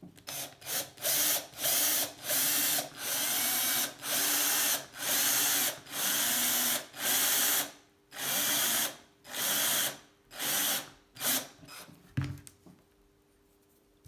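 Power drill run in about fifteen short bursts, spinning up and down as a bit bores shallow holes into a metal part. The bursts stop, and a single knock follows.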